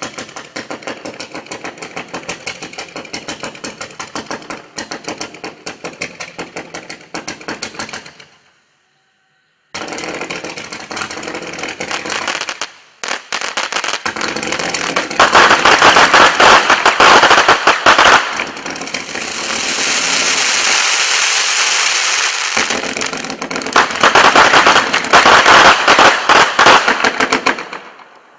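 A Miracle Fireworks 'Touch the Sky' 239-shot consumer fireworks cake firing, its shots cracking off many times a second. There is a silent pause of about a second and a half some eight seconds in, and a brief break near twelve seconds. From about fifteen seconds the firing turns much louder and denser, with two loud spells of rapid bursts, before it stops just before the end.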